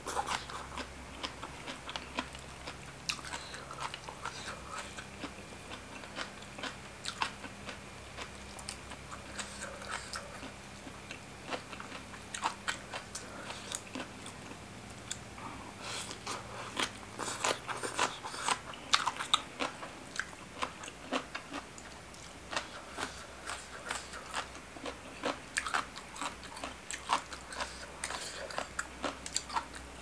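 Close-miked chewing and biting through mouthfuls of spicy seafood papaya salad, with many short crisp crunches, thickest a little past the middle.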